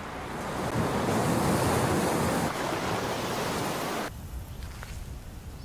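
Steady rushing noise, like wind or surf, that swells about a second in and stops abruptly about four seconds in, leaving a fainter low rumble.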